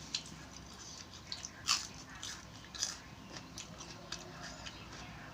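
A person eating seafood salad close to the microphone: chewing and biting, with irregular sharp crunches and wet clicks, the loudest about two seconds in.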